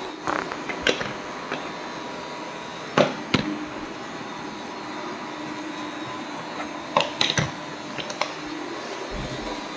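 Robot vacuum cleaner running with a steady whirr and a thin high whine, with several sharp knocks, in pairs about three seconds in and again about seven seconds in.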